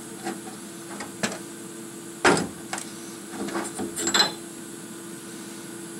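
Steel spindle and flanged bracket knocking and clinking against a steel bench top as they are handled: a few knocks, the loudest about two seconds in, then a quick cluster of clinks around the four-second mark, over a steady low hum.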